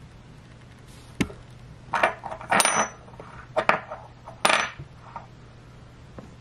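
Metal challenge coin picked up and turned over on a tabletop: a light click, then four quick clusters of clinks and scrapes, one with a short metallic ring.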